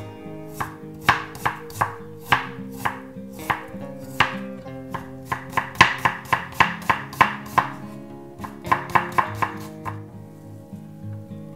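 Chef's knife slicing an onion on a wooden cutting board: sharp knocks of the blade hitting the board, about two to three a second, in three runs with short pauses, stopping shortly before the end.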